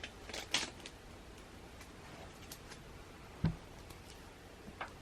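Faint handling sounds of photo cards and their packaging: a few light clicks and rustles in the first second, a soft knock about three and a half seconds in, and a small click near the end.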